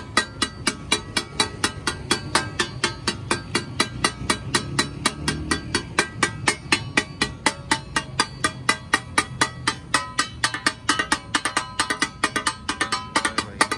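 Rapid metallic clatter of two steel spatula-blades chopping meat on a large steel tawa griddle (taka tak), in a fast, even rhythm of about six strikes a second with the griddle ringing between strikes.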